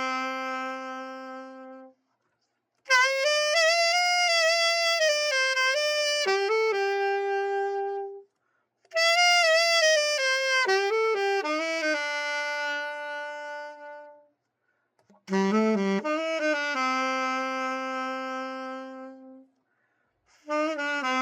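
Yamaha YAS-62 alto saxophone played solo after a full overhaul: four short melodic phrases, each ending on a long held note, with brief pauses between them.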